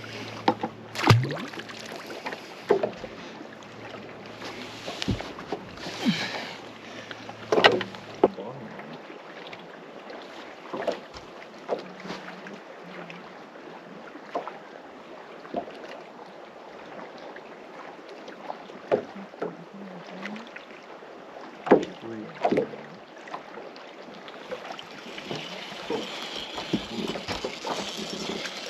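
Scattered knocks and taps on a small fishing boat over a steady wash of wind and water noise, with a low hum that drops out about eight seconds in.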